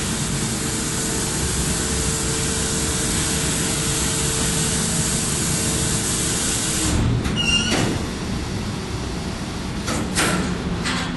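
Loud, steady machinery drone with a hum aboard the double-deck car ferry Prins Johan Friso. About seven seconds in it falls away during a short squealing clatter, another brief clatter comes near the end, and a quieter, lower hum remains.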